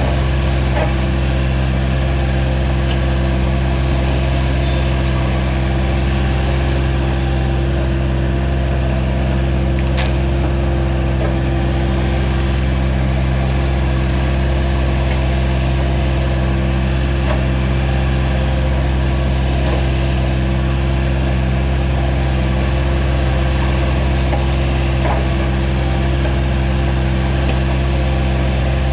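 Vermeer CTX160 mini skid steer engine running steadily at a constant speed while its stump bucket pries a tree stump out of the ground. A few faint cracks and snaps of wood and roots, one sharper about ten seconds in.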